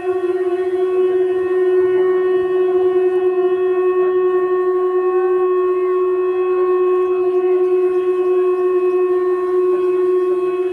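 Conch shell (shankh) blown in one long, unbroken steady note, the call that signals the start of the Ganga aarti.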